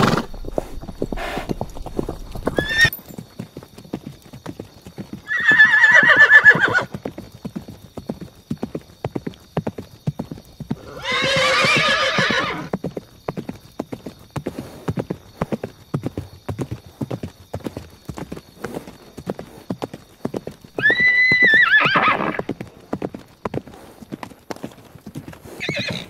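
Horse hooves clip-clopping in a quick, continuous stream of hoofbeats, with a horse neighing three times, each whinny a second or two long, at about six, eleven and twenty-one seconds in.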